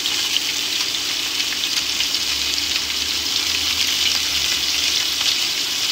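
Salmon fillets and raw shrimp frying in hot garlic oil in a pan: a steady sizzle with small crackles.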